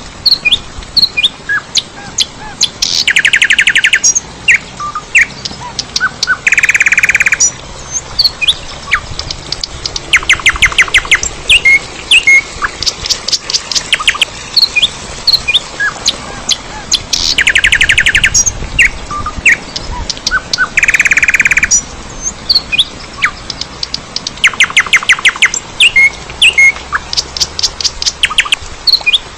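Birds chirping and calling, with short chirps scattered throughout and bursts of rapid trills every few seconds.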